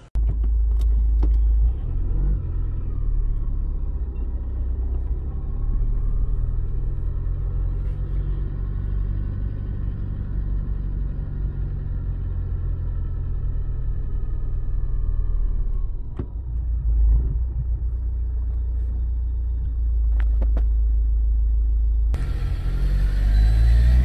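Low, steady rumble of a car driving along a street, with a faint engine whine that rises and falls.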